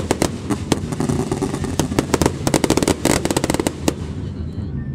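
Aerial fireworks bursting in a rapid run of sharp crackling pops. The crackle is densest about two-thirds of the way through, then thins out to scattered pops near the end.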